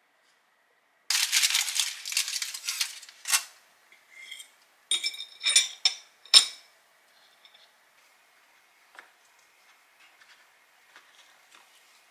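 Aluminium foil crinkling as it is unwrapped, for about two seconds. Then a few sharp, ringing clinks of a knife against a plate, and faint light handling noises.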